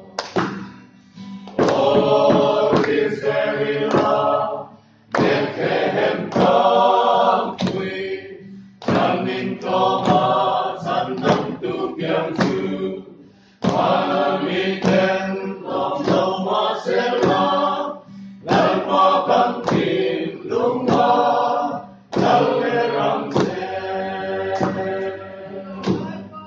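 A mixed group of men and women singing a Mizo song together in unison-style choral phrases, each about four seconds long with brief breath pauses between them.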